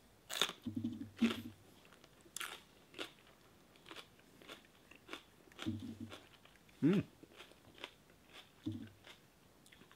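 A person biting into a fresh Monkey Face chili pepper with crisp crunches in the first few seconds, then chewing it with small wet clicks and crunches. A few short low hums come from the taster's closed mouth, one rising and falling about seven seconds in.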